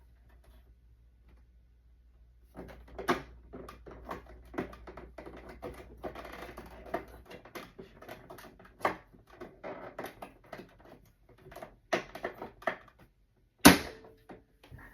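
Irregular mechanical clicking and clacking from a sewing machine being handled, with one loud sharp clack near the end.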